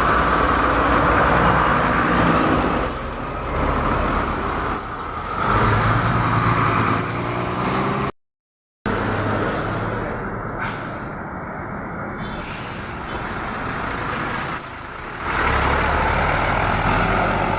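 Large tour buses passing close with their engines running and multi-tone 'telolet' basuri horns sounding, in several loud stretches. A short dropout about eight seconds in marks a join between two clips.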